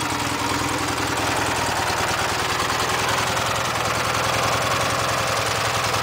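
Lawn tractor's small gasoline engine running steadily with an even, fast beat, freshly cold-started.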